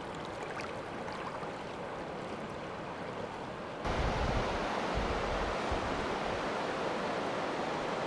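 River water rushing steadily over a gravel riffle. About four seconds in it turns louder, with wind buffeting the microphone for a moment.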